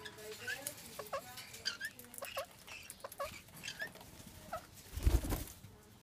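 Indian ringneck parakeets mating, giving short clucking chirps repeated two or three times a second. A louder low rumble comes about five seconds in.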